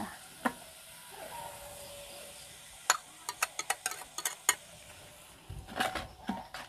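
A cooking utensil clicking and tapping against a pan while seasoning is added to stir-fried cassava leaves: a quick run of sharp taps about three seconds in, and a few more near the end.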